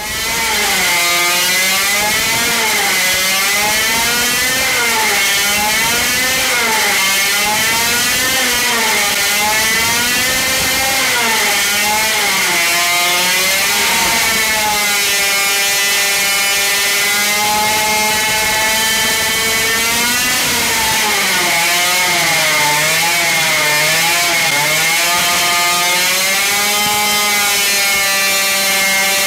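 Supercharged 50cc single-cylinder two-stroke engine running hard at high revs on a dyno, held under load by the retarder. Its pitch wavers up and down continuously as the revs shift, with a strong hiss above the engine note.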